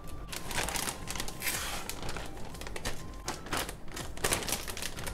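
Plastic Ziploc bag crinkling as it is handled and pulled open by hand, a string of irregular rustles.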